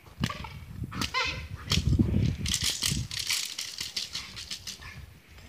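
Dog barking at a bite-sport decoy, with a few sharp clacks and scuffling on dry grass.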